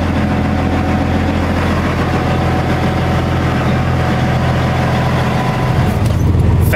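Semi truck's diesel engine idling steadily; near the end it is heard from inside the cab.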